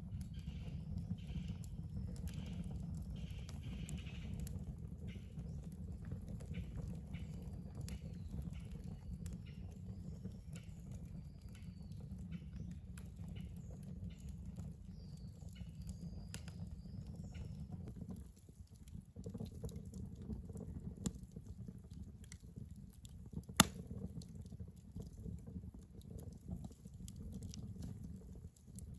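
Wood fire crackling, with scattered small clicks and one sharp loud pop about two-thirds of the way through, over a steady low rumble. Short high chirping calls repeat through the first half.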